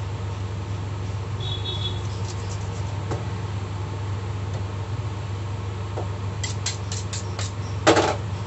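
Steady low hum with a run of light, sharp clicks near the end. A single louder knock follows, the sound of a knife and cutting board as raw chicken is cut into pieces.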